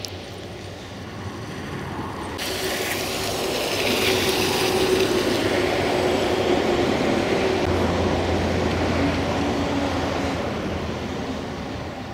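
A motor vehicle moving slowly along a dirt road: a steady rushing of tyres on the track with a low engine hum. The noise swells after a cut about two and a half seconds in and eases near the end.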